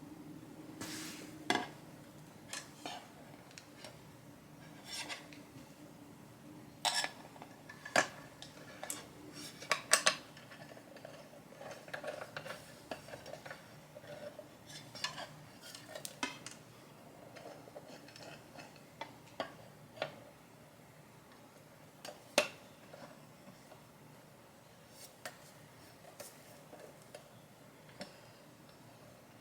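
Irregular clicks, clinks and knocks of hard parts and small hardware being handled while a vanity mirror is assembled, a few seconds apart and sparser in the second half.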